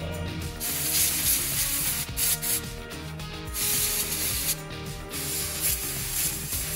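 A pressurised spray hissing in several bursts of a second or so each, one of them short, with background music underneath.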